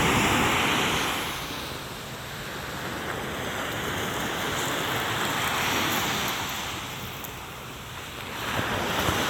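Sea waves breaking on a beach, the surf swelling and fading in slow surges, loudest at the start, around six seconds in and near the end, with wind rumbling on the microphone.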